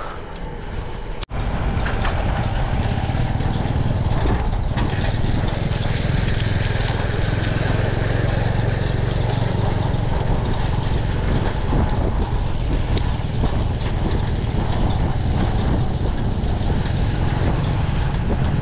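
Wind rushing over an action camera's microphone on a mountain bike being ridden along a road. A steady, heavy rumble that comes in abruptly about a second in and holds level.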